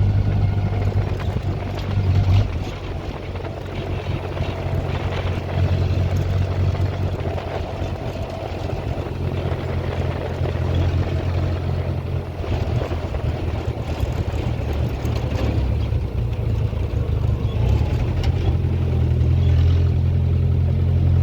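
1956 Willys Jeep CJ5's four-cylinder engine running as the Jeep drives along the road, with wind noise over the microphone. The engine drone drops off about two seconds in and builds again about halfway through.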